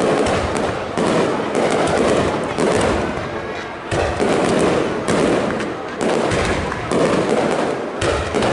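Aerial fireworks display: shells bursting one after another, about one loud bang a second, each followed by fading crackle and rumble.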